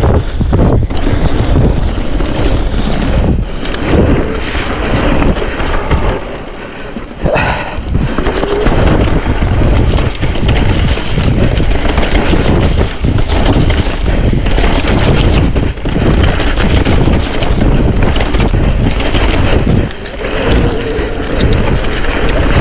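Wind rushing over the camera microphone while a mountain bike rides a rough trail, with frequent knocks from the bike over bumps. The noise eases briefly about six seconds in and again near the end.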